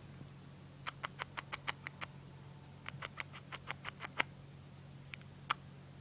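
A cockatiel's beak giving quick 'kisses' against a person's lips and nose: two quick runs of small sharp clicks, about seven a second, then two single clicks near the end.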